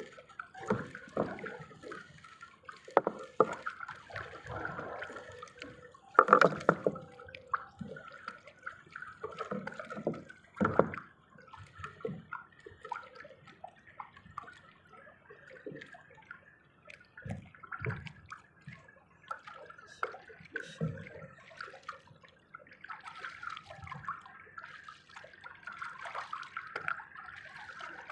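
Water sloshing, dripping and splashing around a small fishing boat, with irregular knocks and splashes of varying loudness.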